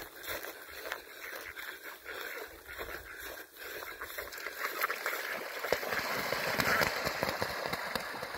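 Footsteps and ducks' feet rustling through dry grass, then, from about five seconds in, a louder run of water splashing as the ducks rush into a pond.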